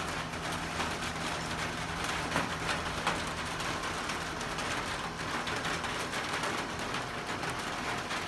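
Rain falling on a tin roof over a screen room, a steady hiss of many small drop hits. The tin roof makes it sound like it's raining harder than it is.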